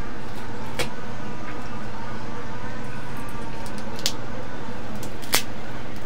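A few sharp clicks of cooked crab shell being handled and pulled apart by hand, the loudest a little past five seconds in, over a steady background hum and hiss.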